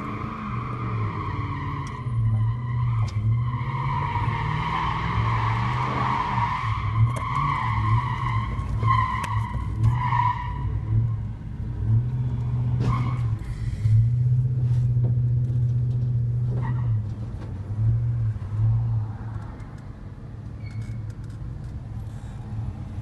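Vehicle noise heard from inside the cabin: a steady low engine drone with a high squeal over roughly the first ten seconds, then a couple of sharp knocks.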